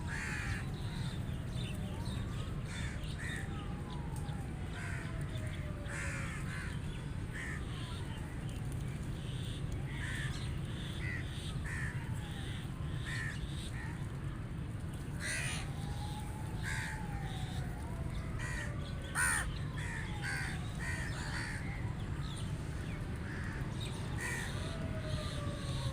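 Rooks cawing: many short harsh caws from several birds, overlapping and repeated, with one louder caw about 19 seconds in. Drawn-out calls that fall in pitch recur throughout, over a steady low rumble.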